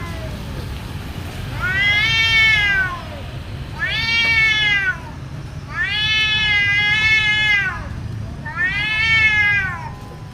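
Domestic cats yowling in a fight standoff: four long, drawn-out wails, each rising and then falling in pitch, the third the longest at about two seconds. A low steady rumble runs underneath.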